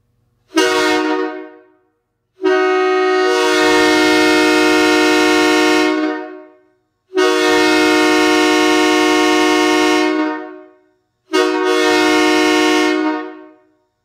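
A homemade PVC S3K Megablast train horn sounding four loud, steady blasts: a short one, two long ones of three to four seconds each, then a shorter one near the end. Each blast starts abruptly and fades off as it stops.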